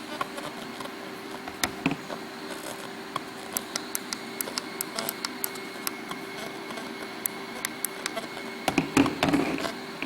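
A steady low electrical hum with faint hiss, broken by scattered small clicks and knocks, and a louder burst of handling rustle and thumps about nine seconds in. No broadcast signal is heard.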